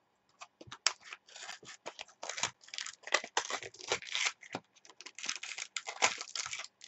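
Trading-card pack wrapper being torn open and crinkled by hand: an irregular run of crackling rips and rustles.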